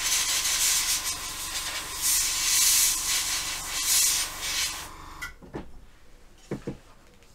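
A hair dryer blowing, with a steady motor hum and whine under the rush of air, rising and falling in loudness. It switches off about five seconds in, followed by a few light knocks.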